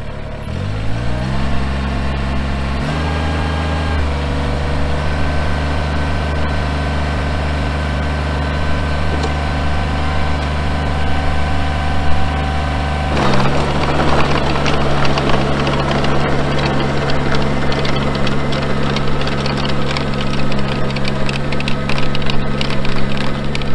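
Kubota BX23S compact tractor's three-cylinder diesel revving up over the first few seconds, then running steadily at high throttle driving a 5-foot PTO rotary tiller. About 13 seconds in the tiller tines bite into the sod and soil, and the sound turns rougher, with a rattle of knocking clods over the engine.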